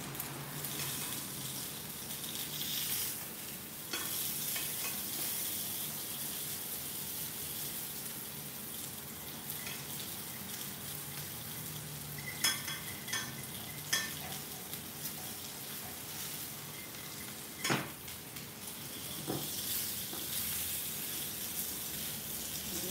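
Salmon steak sizzling in oil in a cast iron skillet, a steady hiss. A few sharp clicks past the middle, the loudest about two thirds of the way in, from a metal utensil knocking against the pan as the fish is prodded.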